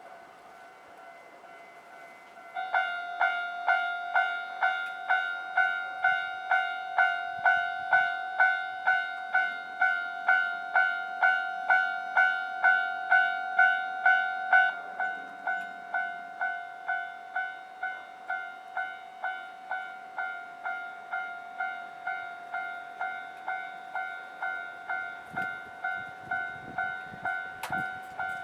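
A Japanese railway level-crossing warning bell starts ringing about two and a half seconds in, an even ding-ding of about one and a half strikes a second. It drops in loudness about halfway and keeps ringing. Faint low rumbling comes near the end.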